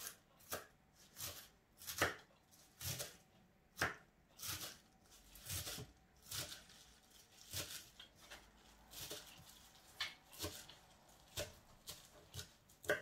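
Kitchen knife chopping a heap of fresh leafy greens on a plastic cutting board: a run of quick, uneven strokes, roughly one or two a second.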